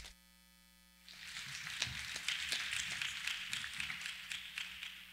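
Audience applauding. The clapping starts about a second in and tapers off near the end.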